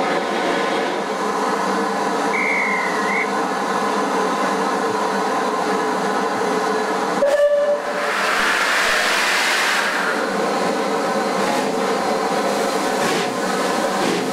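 Bulleid Light Pacific steam locomotive 34046 Braunton standing at a platform, giving off a steady hum of several tones over a steam hiss. There is a short high whistle about two seconds in. After an abrupt break about seven seconds in, the steam hiss is louder.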